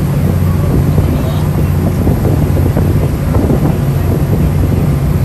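Sightseeing ferry's engine running with a steady low drone, wind buffeting the microphone, and passengers' voices talking over it.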